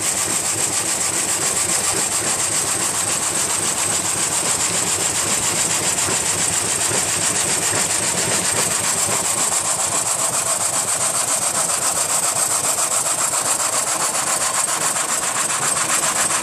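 A 1947 horizontal frame saw cutting a log with its single reciprocating blade. It makes a steady, evenly pulsing rasp of the blade in the wood, with the flat-belt drive and pulleys running under it.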